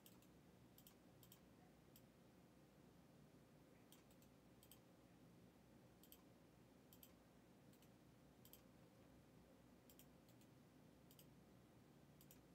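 Near silence: faint room tone with about a dozen faint, sharp clicks scattered irregularly.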